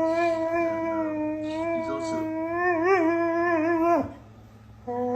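A dog howling back at its owner's scolding: one long, held howl that wavers near the end and breaks off about four seconds in, with another howl starting just before the end.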